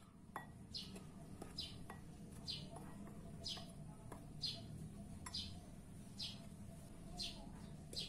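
A small bird repeats a short, high, falling chirp about once a second. A metal spoon stirring flour in a glass bowl taps and clinks faintly against the glass now and then.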